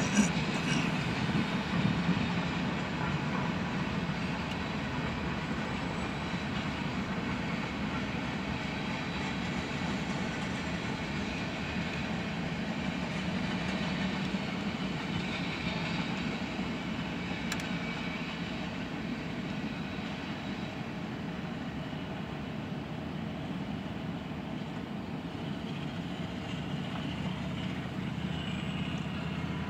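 Freight train cars rolling past on the rails: a steady sound of steel wheels on track, with a sharp metallic click about two-thirds of the way through and the level easing slightly in the second half.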